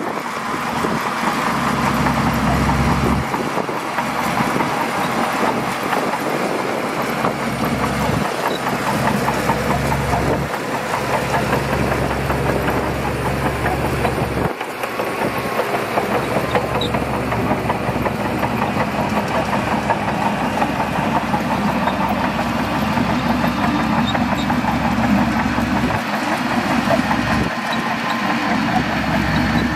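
Shantui DH17C2 bulldozer's diesel engine running steadily while the machine works, its low engine note cutting out and coming back every few seconds.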